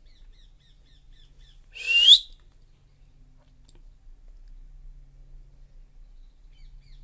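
Pet green parakeet giving one short, loud screech that rises in pitch, about two seconds in. Faint, quick high chirps of small birds come near the start and again near the end.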